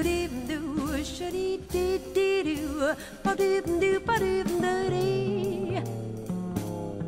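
Jazz recording: a female voice sings a wavering melody with vibrato over double bass, guitar and drums keeping a steady beat.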